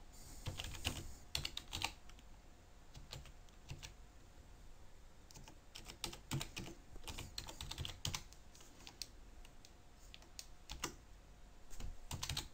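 Computer keyboard being typed on: faint, irregular key clicks in short runs with pauses between them as a command is typed out.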